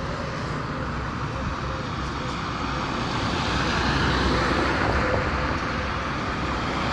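Roadside traffic noise: a steady rush of passing vehicles with a low rumble, growing a little louder about halfway through as a vehicle passes.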